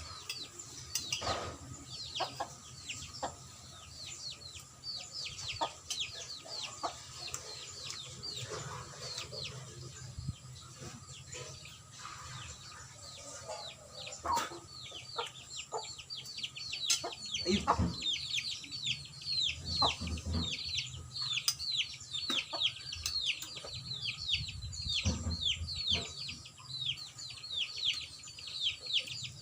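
Chickens peeping: a continuous stream of short, high calls, each falling in pitch, several a second, with scattered sharp clicks.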